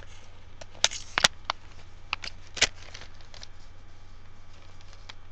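A scatter of light clicks and ticks over the first three seconds, then only a faint steady low hum.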